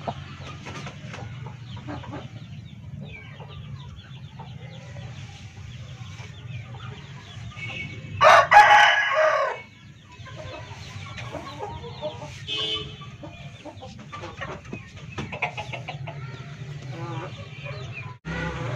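An Aseel rooster crows once, about eight seconds in, a call lasting about a second and a half. Quieter clucking runs through the rest, over a steady low hum.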